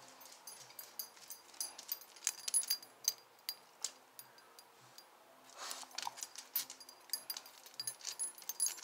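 Irregular light metallic clicks and clinks of a hand wrench working on a motorcycle's fasteners, with a short rustle partway through.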